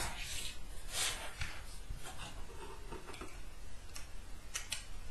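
Clear acrylic plate parts clicking and tapping against each other and the wooden tabletop as they are picked up and fitted together, a handful of light, scattered clicks.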